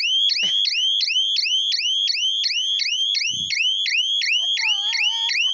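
Electronic alarm siren on a solar fence energizer (jhatka machine) wailing in quick rising whoops, about four a second. It sounds while the fence line is touched to earth with a screwdriver, the way the unit signals that the fence has been contacted or shorted.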